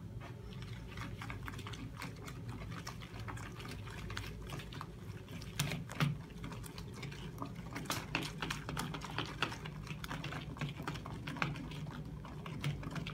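Hand whisk beating powdered whipped-cream mix into milk in a plastic bowl: a fast, uneven run of light clicks and taps as the wires knock against the bowl, a few sharper knocks among them, over a low steady hum.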